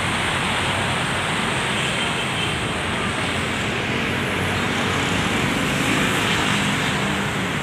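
Steady road-traffic noise: a continuous wash of passing vehicles with a low engine hum under it.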